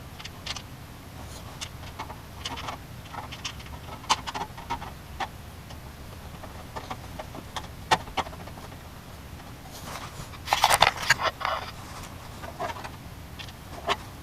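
Hands working on a computer case while fitting fans: scattered small clicks and scrapes of plastic and metal parts, with a burst of louder clattering about ten and a half seconds in, over a steady low hum.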